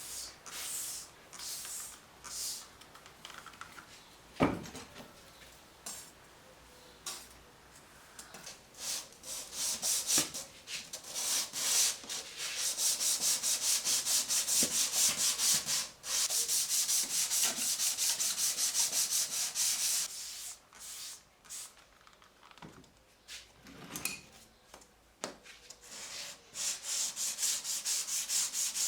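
Hand sanding with sandpaper: quick back-and-forth rubbing strokes, in short spells at first, then a steady run in the middle, then scattered strokes again. A single knock sounds about four seconds in.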